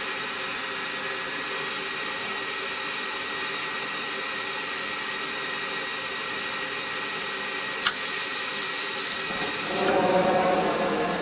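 Rheem RGRM two-stage condensing gas furnace starting up: the draft inducer blower runs steadily, a sharp click comes about eight seconds in, then a hiss, and near the end a louder, rougher rush as the burners light on low stage.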